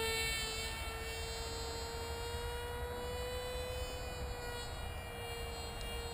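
Electric motor and propeller of a Turnigy Bonsai flying wing in flight, a steady high-pitched whine. The pitch rises slowly to about four seconds in, then eases back down a little.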